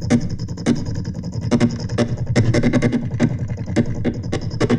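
Old Singer sewing machines played as an amplified, computer-controlled instrument: their mechanisms clatter in rapid, uneven clicks over a steady low hum, forming a beatbox-like electronic rhythm.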